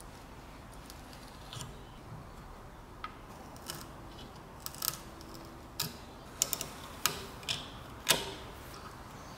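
End-cutting pincers biting into and pulling rusty nails out of an old wooden scythe handle: a series of irregular sharp metal clicks and ticks, busier in the second half, the loudest near the end.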